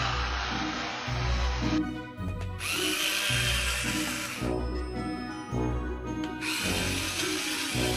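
The remote-controlled toy tarantula's small electric gear motor whirring as its legs crawl, in runs that stop and start, over background music with a low beat about twice a second.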